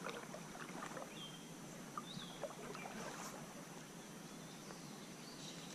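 Quiet river ambience: faint water sounds, with two short high chirps about one and two seconds in.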